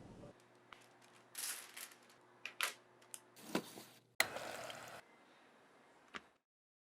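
A few short rustles and sharp clicks over a faint hum, broken by abrupt cuts, then dead silence.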